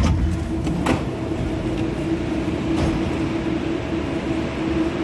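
Metro train standing at the platform with its doors open, its onboard equipment giving a steady electrical hum with a clear tone. A sudden knock sounds at the start, and a few sharp clicks follow in the first three seconds.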